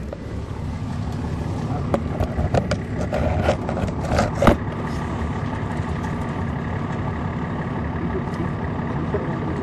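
Caterpillar C13 ACERT diesel of a 2006 MCI D4500CL coach running steadily with a low rumble, heard from inside the bus. A cluster of clicks and knocks comes between about two and four and a half seconds in, the sharpest near the end of that run.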